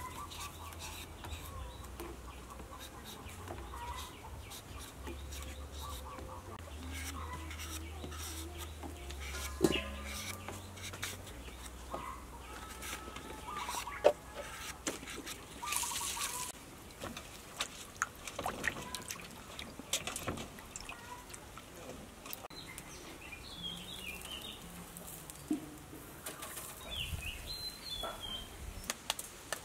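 Chickens clucking with small birds calling, over scattered knife clicks and scrapes as a green mango is peeled. A quick run of clicks comes near the end.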